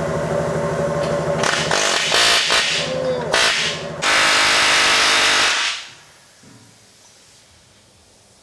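Workshop power machinery running steadily, then clattering and knocking, then a loud rushing noise for about a second and a half that cuts off, leaving the shop much quieter.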